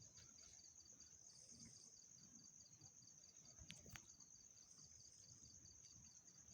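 Near silence, with a faint steady high whine and a faint, quickly pulsing tone just below it.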